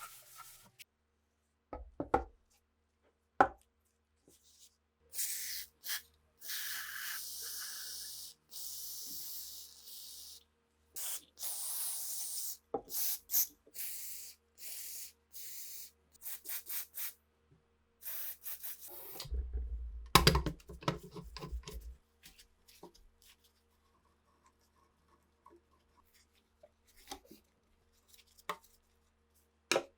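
Hand work on rusty rifle parts: two sharp knocks, then several seconds of steady hissing and shorter hissing spurts, followed by a stretch of low rumbling with clattering knocks about two-thirds in, and light ticks and rubbing near the end.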